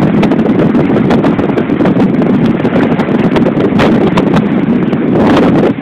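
Wind buffeting the microphone on a boat at sea: a loud, steady low rumble broken by many short knocks and cracks.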